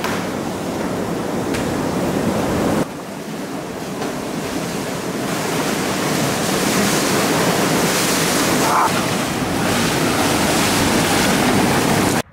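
Water in a bubbling whirlpool tub splashing and churning hard as people kick and throw it about, a steady loud rush. It drops suddenly about three seconds in, then builds back up.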